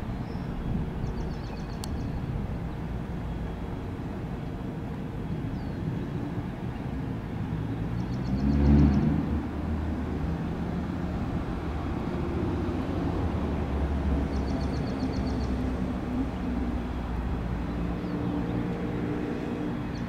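Boeing 787-9 Dreamliner on descent, passing high overhead: a steady distant jet-engine rumble with a low drone, swelling louder about nine seconds in.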